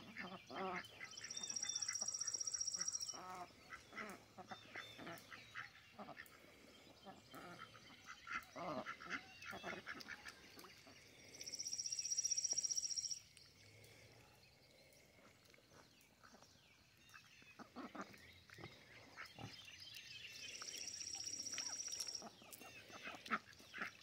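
Khaki Campbell ducks quacking softly and intermittently. Three times, a high buzzing trill of about two seconds stands out as the loudest sound.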